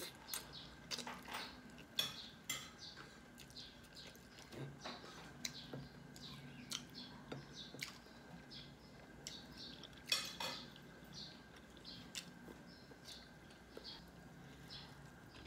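Close-up eating sounds of a person chewing and smacking their lips over mouthfuls of food eaten by hand, heard as short, irregular clicks and smacks. The loudest come about two seconds in and about ten seconds in, over a faint steady hum.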